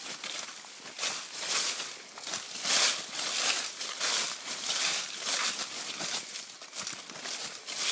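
Footsteps crunching and rustling through a thick layer of dry fallen autumn leaves, one crunch with each step at a steady walking pace.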